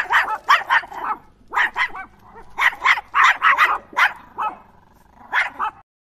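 Dog barking rapidly in quick runs of several barks with short pauses between, stopping suddenly near the end.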